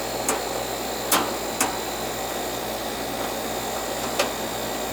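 Coleman air-conditioning unit running with a steady mechanical hum and whoosh, with four light clicks or taps of handling scattered through it.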